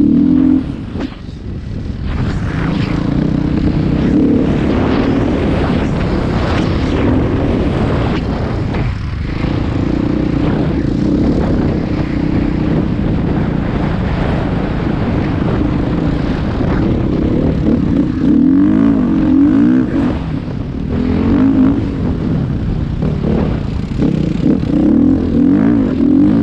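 Engine of a small riding vehicle running loud and continuously under way. Its pitch rises and falls as the throttle changes, with a brief let-off about a second in.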